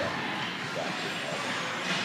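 Ice hockey arena ambience during play: a steady din with faint, distant voices from spectators and players.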